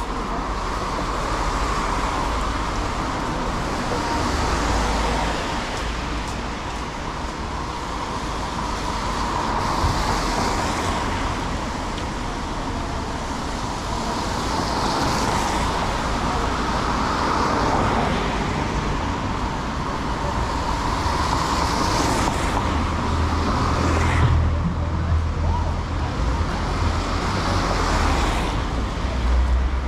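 Road traffic passing on a rain-wet city street: tyre hiss swells and fades as cars go by every few seconds. A vehicle's low engine rumble comes in near the end.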